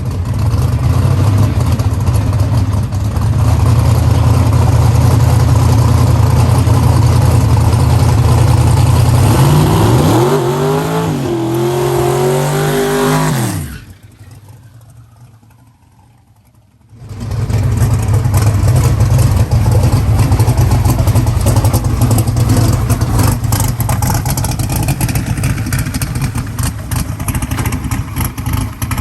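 Loud drag-racing engine noise. An engine runs steadily, then revs climb and hold for a few seconds before the sound drops away abruptly. After about three seconds of much quieter sound, loud, crackling engine noise comes back.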